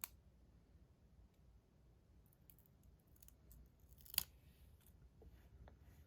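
Faint handling sounds: scattered small clicks and taps as tape is fitted onto a metal fidget toy, with a sharper click about four seconds in.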